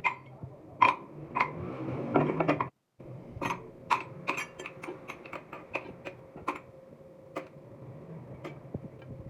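Irregular sharp metallic clicks and clinks from small metal parts and tools being handled, some strikes ringing briefly. The sound drops out completely for a moment a little under three seconds in.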